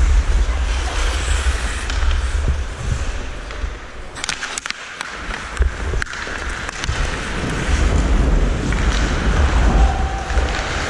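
Wind rumble buffeting a helmet-mounted GoPro microphone while skating on an ice rink, with a steady hiss over it. About four seconds in the rumble eases briefly and a few sharp clacks sound.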